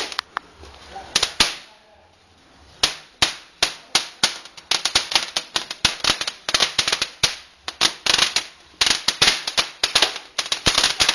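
Small firecrackers popping in an irregular string of sharp cracks. The cracks come a few at a time at first, then faster and denser through the second half.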